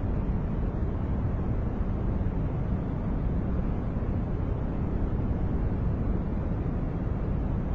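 Continuous noise track played for focus and sleep, billed as white noise. It is steady and unchanging, deep and rumbling rather than hissy, with most of its weight in the low end.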